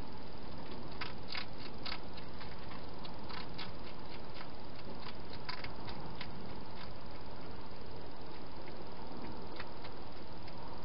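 Wild hedgehog crunching dry food from a bowl inside a plastic feeding station: irregular small crisp clicks that thin out after about seven seconds, over a steady hiss.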